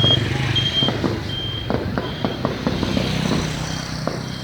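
A vehicle engine running with a steady low hum, a short high electronic beep repeating about every 0.7 s, and many scattered sharp pops of fireworks crackling around it.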